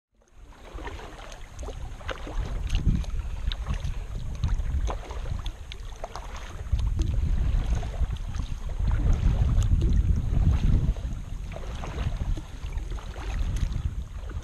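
Wind buffeting the microphone in gusts, with water splashing and lapping in short crisp spatters around a kayak.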